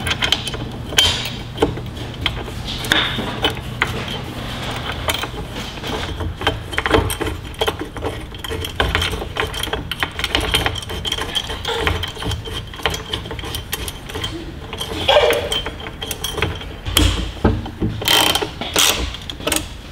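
Hand socket ratchet clicking in short runs as it turns bolts in, with small metallic knocks from handling the tool and parts.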